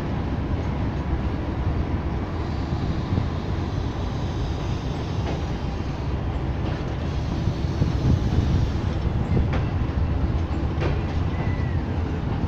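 Passenger coaches of a departing express train rolling past, their wheels rumbling steadily on the rails, with a few sharp clicks in the second half.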